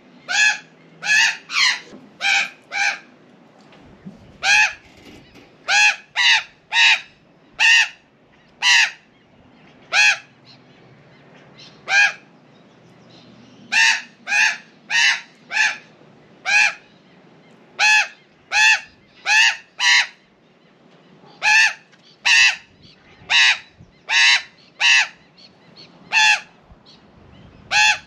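Female Australian magpie giving loud, strident, harsh squawks, about one a second in runs with short pauses. It is scolding a cat it treats as a threat.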